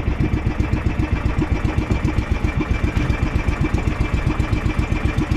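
Outrigger boat's engine running steadily, with a rapid, even chugging pulse.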